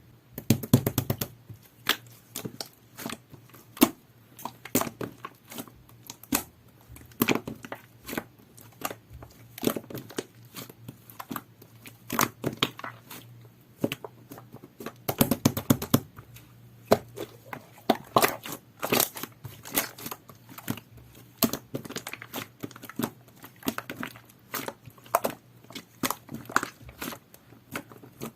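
Two-layer jelly-textured slime being squished and pressed by hand: an irregular run of sticky clicks and pops.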